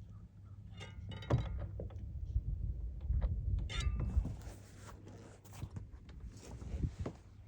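Knocking and thunks from the Kraken's propeller drive as the prop engages, over a low rumble. The knocking is the fault that shows when the prop is engaged.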